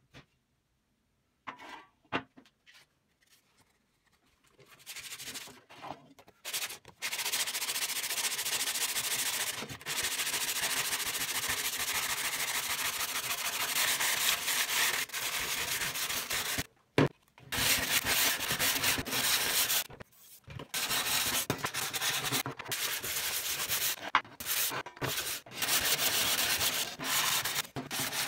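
Sandpaper rubbed by hand over the painted steel of a shashlik maker's panel, sanding off the old paint. The first few seconds hold a few light handling clicks, then steady scraping runs in long stretches broken by short pauses.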